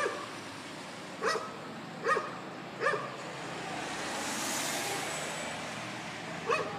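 A dog barking: single sharp barks, four in the first three seconds and one more near the end, over a steady background hiss that swells in the middle.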